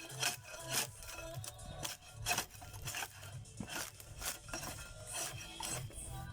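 Irregular rasping, scraping strokes of hand-tool work, about two a second, with background music.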